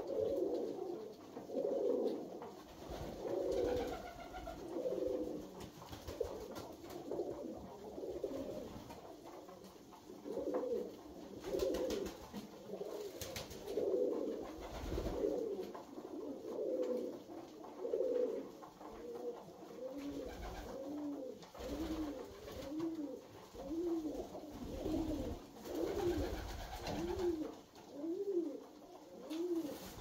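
Alföldi-Körösi tumbler pigeons cooing, many coos overlapping. In the last third one bird's coos come in a steady run about once a second, each rising and falling in pitch.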